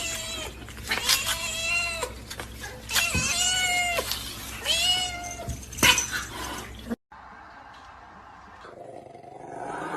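A cat meowing: three long, drawn-out meows a second or so apart, with a few sharp knocks among them. The meows stop about two-thirds of the way through, and a quieter, different sound builds toward the end.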